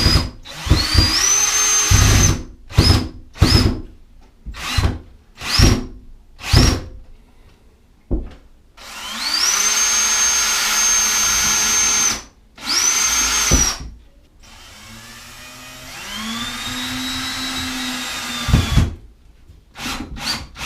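Electric drill/driver run in a series of short trigger bursts, each spinning up to a high whine. These are followed by a longer run of about three seconds and a shorter one. Near the end comes a quieter, lower-pitched run at slower speed.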